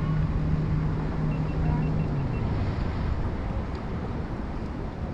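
Wind rumbling on the microphone over open water, with a steady low hum that drops slightly in pitch a little over two seconds in.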